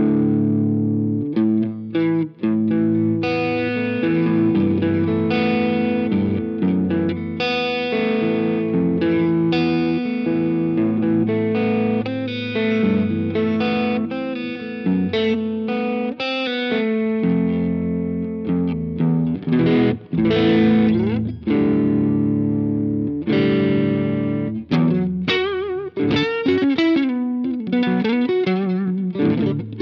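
Electric guitar played through a Jeds Peds Wasteman, a Tube Screamer-style overdrive with a clean blend, giving a driven, distorted tone on chords and single notes. Notes waver and bend near the end.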